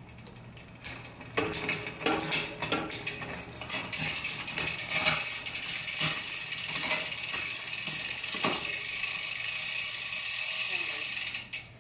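Shimano XT M8000 11-speed drivetrain turning in a workstand as the cranks are spun by hand: a few separate clicks over the first four seconds, then the chain running steadily over the cassette and rear derailleur pulleys with a fast ratcheting tick, stopping just before the end.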